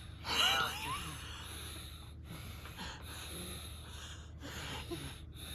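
Sleeping baby snoring softly through the nose. About half a second in there is one louder breath with a wavering, whistling squeak, followed by fainter breaths.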